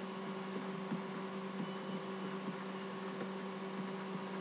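Steady electrical mains hum from the recording setup, with faint scattered ticks of a stylus writing on a digital pen tablet.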